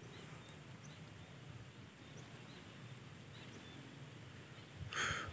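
Quiet open-air ambience with faint, scattered high bird chirps. A brief hiss-like burst comes about five seconds in.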